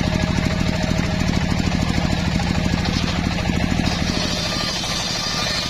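Homemade circular sawmill ripping old mahogany into rafters: the big blade cutting under the engine's rapid, even pulsing. About four seconds in the low pulsing eases and the sound turns brighter as the cut ends and the board is pulled clear.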